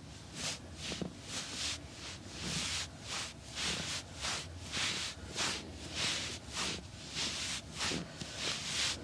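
Rhythmic rubbing strokes of a hands-on massage, a little over two a second, each a soft hiss.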